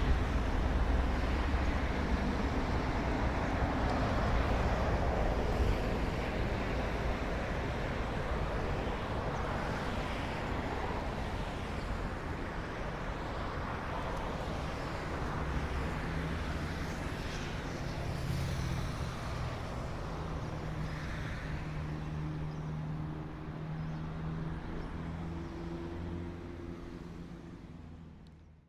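Outdoor road-traffic noise: a steady rush of passing vehicles, with a low engine hum joining about halfway through, fading out at the very end.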